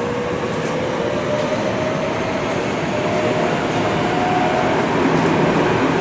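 Tokyo Metro 05 series subway car (set 14) running, heard from inside: a steady rumble of wheels and tunnel noise, with a traction motor whine from its Toyo GTO VVVF inverter slowly rising in pitch as the train gathers speed.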